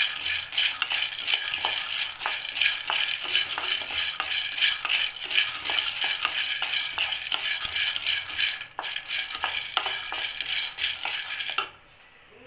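Roasted gram (pottukadalai) rattling and scraping against a steel kadai as a wooden spatula stirs it during dry roasting: a dense, continuous patter of small clicks over a hiss. The stirring stops suddenly near the end.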